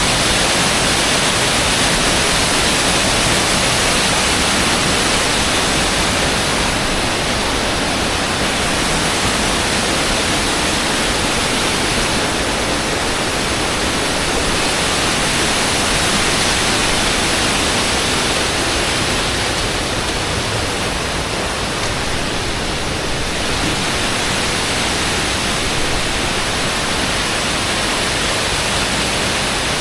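Banyumala waterfall's many streams pouring down the rock face, a loud, steady rush of falling water.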